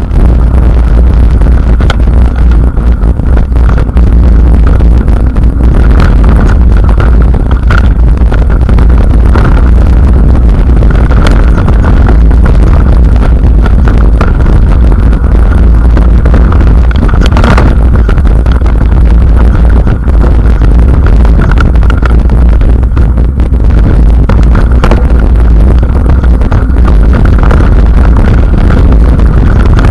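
Mountain bike riding fast down a rocky dirt singletrack: heavy wind buffeting on the mounted camera's microphone, with the tyres rolling over dirt and scattered knocks and rattles as the bike hits rocks, one louder knock about halfway through.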